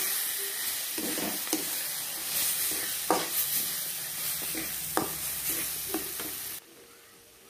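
Spatula stirring pav bhaji vegetables as they sizzle in a metal pan, with a few sharp scrapes of the spatula against the pan. The sizzling cuts off suddenly near the end.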